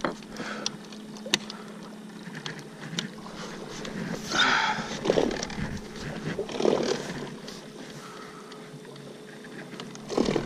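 Minn Kota Edge 45 bow-mount electric trolling motor running with a steady hum while the boat noses through shallow water, with scattered clicks and a few louder rough noises around the middle.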